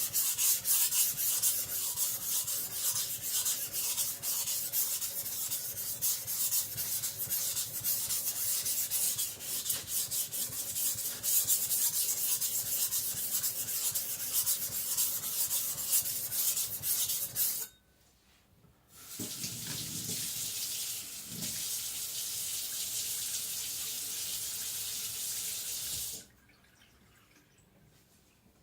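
Chinese cleaver blade being ground back and forth on a whetstone with heavy, rapid strokes while the blade is thinned, a dense grainy rubbing. It stops about 17 seconds in, and after a short pause water runs steadily for about seven seconds before a quiet end.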